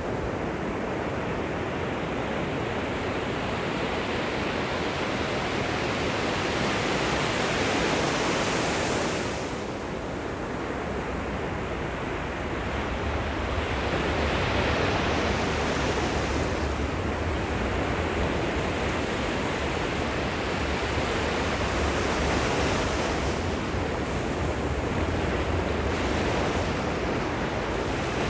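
Gentle ocean surf washing in at the shoreline, a steady rushing of small breaking waves that swells and eases every several seconds, with a brief lull about ten seconds in.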